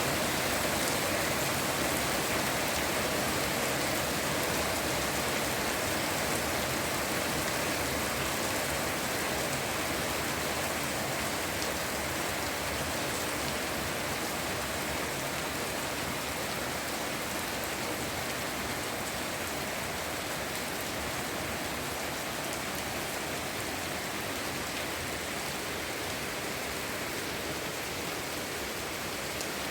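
Heavy rain falling steadily, a dense hiss with the fine patter of drops striking surfaces. It eases slightly over the half minute.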